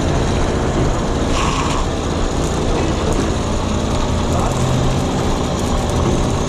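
Heavy-duty tow trucks' diesel engines running hard while their winches pull, a steady loud mechanical din, with a short high tone about a second and a half in.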